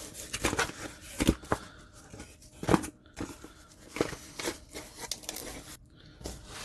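Cardboard knife boxes being handled: a box flap folded shut and the box set down among other boxes and packing peanuts. The result is an irregular run of short taps, scrapes and rustles of cardboard.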